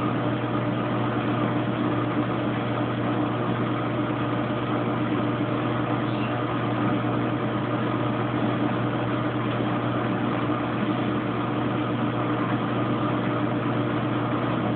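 Kenmore Oasis top-load washing machine in its high-speed spin, a steady hum at a constant pitch.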